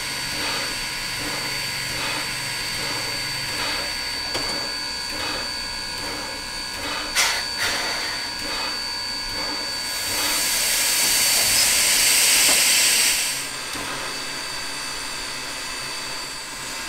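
Standing steam locomotive, Sierra Railway No. 3, hissing steam with a soft regular puff about every 0.7 seconds. A short sharp clank comes just after seven seconds, and a louder hiss of escaping steam or air lasts about three seconds past the middle.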